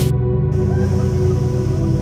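Background music: a slow ambient track with sustained tones and a low pulsing beat.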